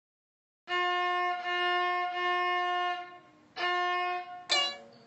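A violin sounding one steady held note in three strokes, then a shorter repeat of the same note, followed by a brief sharp squeak near the end.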